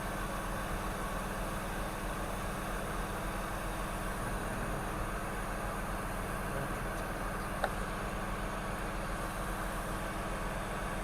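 Hot air rework station blowing steadily while a small capacitor is heated off a donor logic board, over a low steady hum. One small click about seven and a half seconds in.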